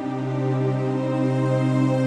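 Slow, sad ambient background music: sustained held chords, with a change of chord at the start.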